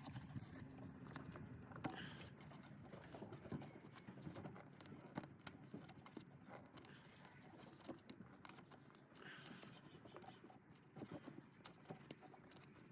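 Near silence with faint scattered clicks and taps from hands working rubber hoses and parts back into place in an engine bay.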